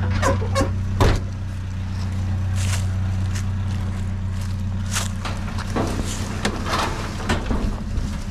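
A vehicle engine idling steadily, with a few sharp knocks and clunks in the first second and more clattering later. The engine drone drops away about five seconds in.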